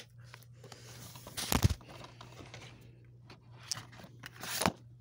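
Handling noise from a plastic DVD case and the phone filming it: rustling, with a dull thump about one and a half seconds in and a sharper knock near the end.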